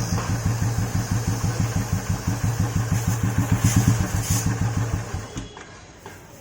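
Royal Enfield Classic 350's single-cylinder engine idling with an even, rapid thump, rising briefly near four seconds and then stopping about five and a half seconds in. It was started on a newly fitted starter motor, and no starter noise is heard.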